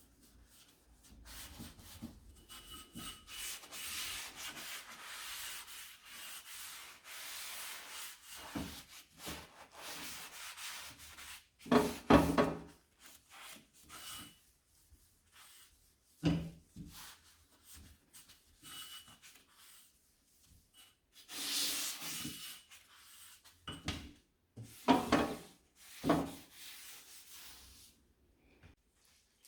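Hand rubbing or scrubbing over a hard surface, a long stretch of scratchy friction noise, then scattered knocks and clunks as objects are set down and handled, with a second brief rubbing spell later on.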